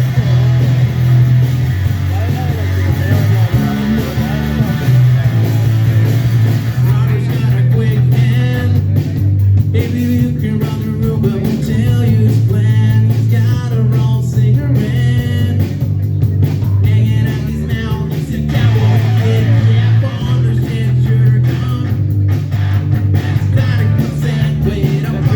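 Live rock band playing an electric-guitar song: a Gibson Les Paul Standard electric guitar over a steady, driving bass line, with singing at times.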